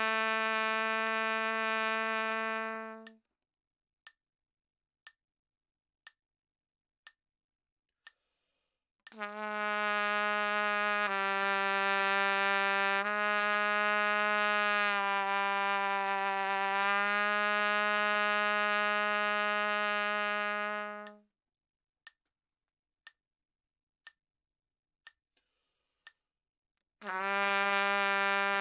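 Trumpet playing long, sustained low notes in a note-bending exercise, the held pitch bent slightly down and back in steps about every two seconds. The notes break off about three seconds in and again about twenty-one seconds in, and in those rests a steady click sounds once a second; a new note starts near the end.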